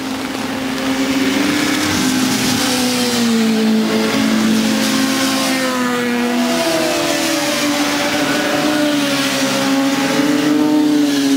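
Several 600 cc racing motorcycles passing at speed on a wet road, their overlapping engine notes rising and falling as they rev through the gears. A steady hiss of spray from the wet road runs underneath.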